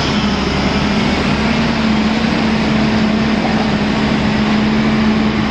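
Diesel engine of a Volvo 220E tracked excavator running loud and steady close by, its hum rising a little in pitch about a second and a half in.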